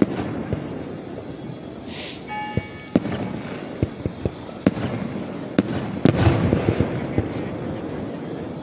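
Aerial fireworks exploding in quick succession: sharp bangs and crackling pops, with a short hissing burst about two seconds in and a denser barrage about six seconds in.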